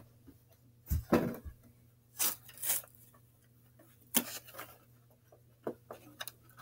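Scattered scrapes, rustles and light knocks on a cardboard guinea pig maze, with a dull thump about a second in and a few small ticks near the end.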